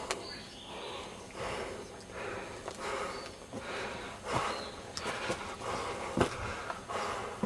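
A person breathing hard in repeated puffs while scrambling up rock, with a few sharp knocks and scrapes of a handheld camera.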